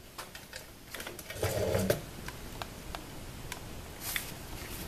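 A cordless drill runs in one short burst about a second and a half in, amid light clicks and knocks of the tool being handled.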